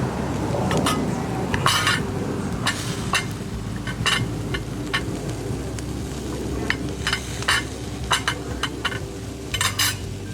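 Metal utensils clicking and scraping against a stainless steel charcoal grill, in short separate clinks and a few quick rattling clusters, over a steady low hum.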